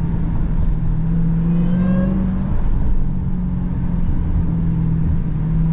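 Supercharged 6.2-litre Hemi V8 of a Dodge Hellcat heard from inside the cabin, droning steadily while cruising. Its pitch rises a little about two seconds in, with a faint rising whine above it.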